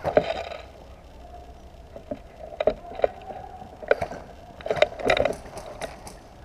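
Irregular sharp clicks and knocks: one right at the start, a few between about two and a half and three seconds in, and a cluster between about four and five seconds in.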